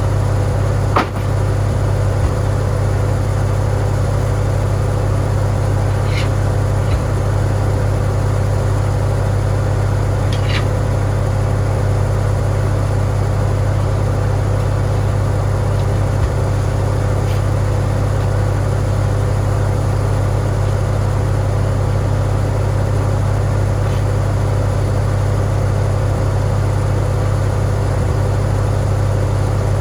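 Farmall tractor engine running steadily at an even speed, with one sharp click about a second in.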